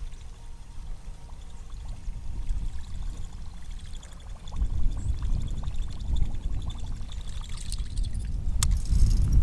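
Water splashing and trickling around a kayak, with wind rumbling on the microphone that gets much stronger about halfway through. A sharp click sounds near the end.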